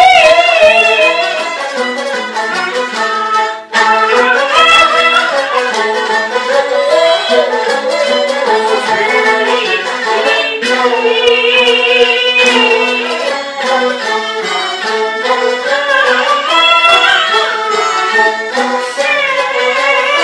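Peking opera music led by a jinghu fiddle, playing a wavering, ornamented melody with a short break a few seconds in.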